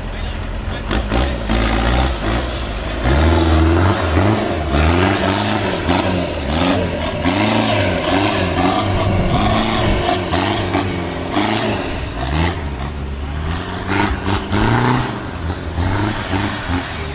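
Diesel engine of an off-road 4x4 competition truck revving hard over and over, its pitch rising and falling about once a second as it drives over dirt mounds, with a lower rumble before the revving picks up about three seconds in.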